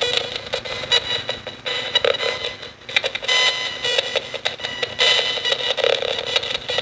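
Nanocom spirit radio sweeping through stations: a choppy run of short bursts of static and clipped radio fragments, with a steady electronic tone running underneath.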